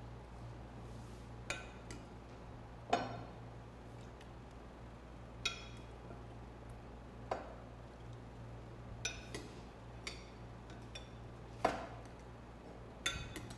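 A stainless steel ladle clinking and scraping against a ceramic bowl and the blender jar as cooked yam pieces are scooped across: about nine separate clinks, a second or two apart, over a low steady hum.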